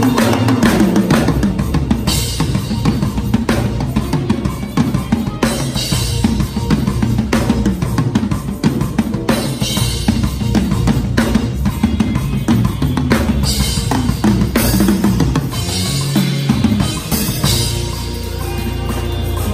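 Acoustic drum kit played hard and fast: dense fills across snare, toms and bass drum with cymbal crashes. Near the end the hits thin out, leaving a held low note.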